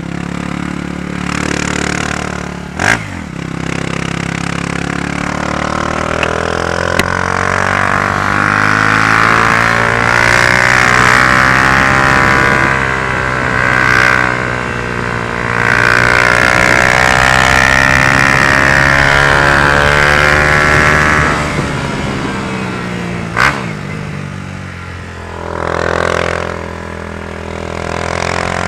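Honda CG Fan 150 single-cylinder four-stroke motorcycle engine, bored out with a 4 mm kit, running through a Gemoto Racing aftermarket exhaust: revved up and held at high revs for long stretches, then dropping back. A sharp crack sounds twice, once near the start and once near the end.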